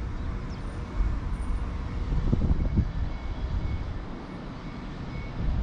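Northern Class 195 diesel multiple unit running at a station platform: a steady low rumble, with a few brief faint tones about two and a half seconds in.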